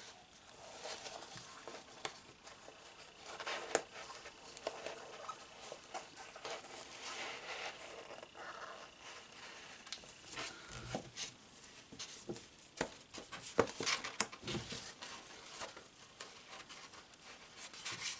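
Hands handling sheets of scrapbook paper and cardstock: soft rustling and crinkling with scattered light taps and clicks, busier in the second half.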